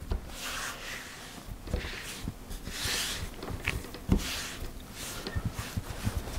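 Hands pressing and turning a ball of shortcrust pastry dough on a silicone mat: soft rubbing and small dull thuds, with a firmer knock about four seconds in.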